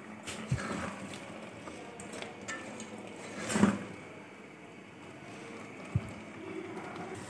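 Silicone spatula stirring and scraping thick, sticky halwa of grated gourd in an aluminium pot, faint, with a few soft knocks against the pot, the clearest about halfway through.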